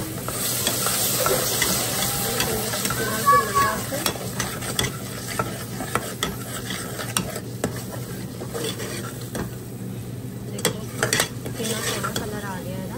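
Steel ladle stirring and scraping onion-tomato masala in a pot, the masala sizzling with a little water just added. The sizzle is loudest in the first few seconds; later the ladle clicks and knocks against the pot several times.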